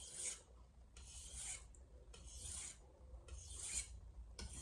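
VG10 stainless santoku blade being stroked back and forth across a wet Shapton Glass whetstone, a rasping scrape at about one stroke a second.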